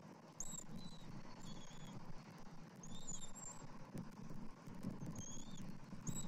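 A bald eaglet gives short, high-pitched peeps about five times while being fed, over a low, steady rumble.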